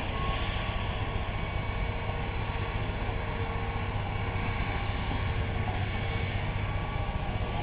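Tracked hydraulic excavator's diesel engine running steadily while the machine swings and raises its boom, heard from a distance as a low rumble.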